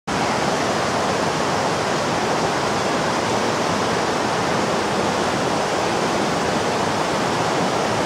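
Waterfall rushing steadily, an unbroken roar of falling water.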